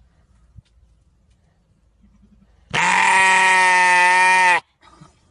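A sheep lets out one loud, long, scream-like bleat at a steady pitch, starting about three seconds in and cutting off sharply after about two seconds.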